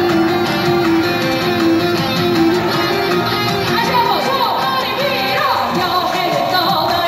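Loud live pop music from a stage PA: a female singer at the microphone over a band mix with keytar and electric violin, a gliding melody line in the middle of it.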